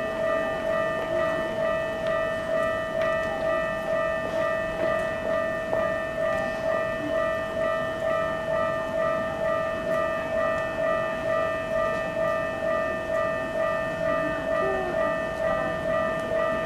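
Japanese railway level-crossing warning bell ringing steadily, an electronic clanging tone repeating at about two strokes a second, signalling that a train is approaching.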